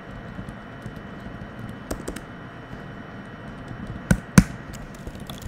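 Computer keyboard keystrokes: a few scattered key clicks, then two louder clacks in quick succession about four seconds in.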